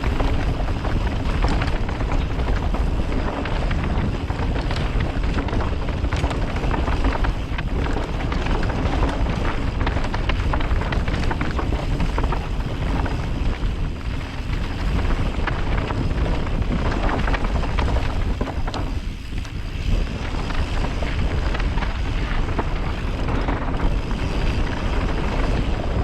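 Wind buffeting the microphone while a bike runs fast down a rocky trail, with a steady clatter and rattle from the tyres and frame going over the rocks.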